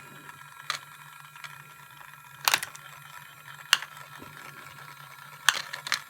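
Battery-powered plastic toy train set running: a small motor hums steadily while its plastic crane and cargo mechanism gives five sharp clicks and clacks.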